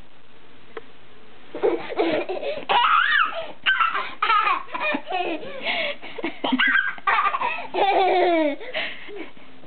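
A toddler laughing in a run of high-pitched bursts, starting about a second and a half in and dying away shortly before the end.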